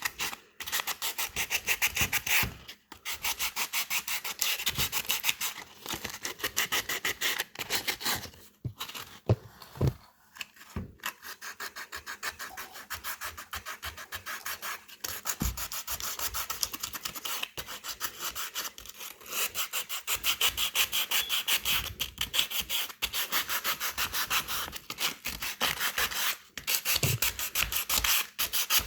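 Rapid back-and-forth scraping of an abrasive by hand over the plastic tank of a car radiator, with a few short pauses. The surface is being roughened around a crack so that JB Weld epoxy will bond.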